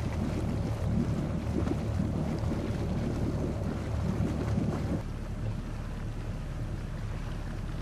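Boat engine running under way, a steady low drone with wind buffeting the microphone; about five seconds in the sound cuts abruptly to a quieter, steadier drone.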